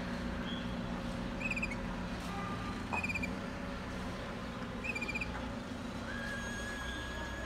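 Waterslager Malinois song canary singing: three short rapid trills about a second and a half apart, then a long, steady whistled note from about six seconds in. A steady low hum runs underneath.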